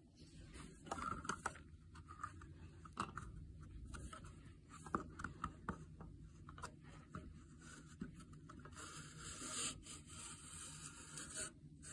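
Faint scraping and scattered small clicks of fingers working the backing out of an antique picture frame, with a longer scrape about nine seconds in.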